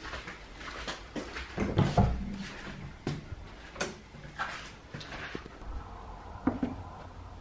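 Footsteps in rubber flip-flops on a hard floor, then things being handled on a shelf: a string of irregular clacks and knocks, loudest about two seconds in, fewer after about five seconds.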